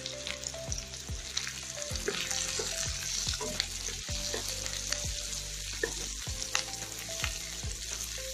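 Chopped onion, garlic and carrot sizzling in hot oil in a kadhai, with a wooden spatula stirring and scraping the pan in repeated strokes about twice a second. A steady low hum runs underneath.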